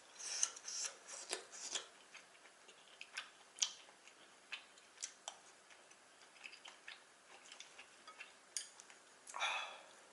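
Close-miked eating of jajangmyeon: irregular wet chewing clicks and mouth smacks, with a few short noisy bursts near the start and about nine seconds in.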